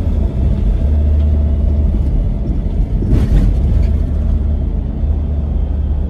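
A car being driven: a steady low road rumble, with a brief rush of noise about halfway through.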